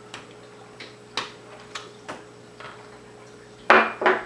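Light ticks and scratches of a pointed tool picking at the rubber screw covers in a laptop's plastic screen bezel, about one every half second. A louder clatter comes near the end.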